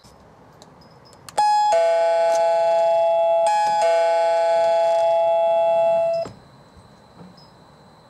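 SIMBR video doorbell's electronic chime ringing a two-note ding-dong twice, a short high note then a longer lower one each time. It starts about a second and a half in and cuts off abruptly about six seconds in.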